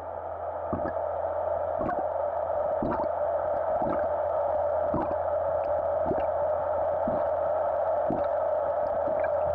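Steady droning underwater-style soundtrack ambience with a low hum beneath it and soft thuds about once a second, like a slow pulse.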